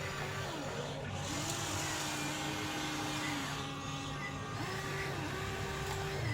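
Electric motors of a remote-control toy excavator whirring steadily, the pitch dipping and rising several times as the arm is worked.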